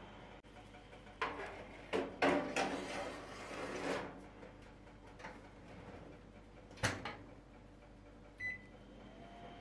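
Metal baking tray scraping and rattling as it is slid onto an oven rack, then the oven door shutting with one sharp knock. A short electronic beep follows near the end.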